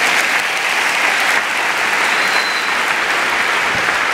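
Live theatre audience applauding steadily.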